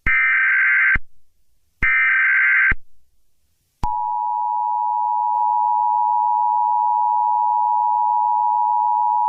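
Emergency Alert System tones. First come the last two of the three SAME header data bursts, each a harsh digital buzz just under a second long, one at the start and one about two seconds in. Then, about four seconds in, the steady two-tone EAS attention signal (853 and 960 Hz together) begins and holds.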